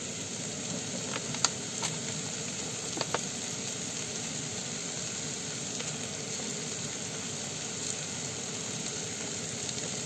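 Sliced bolete mushrooms frying in oil in a pan, a steady sizzle, with a few light clicks in the first three seconds.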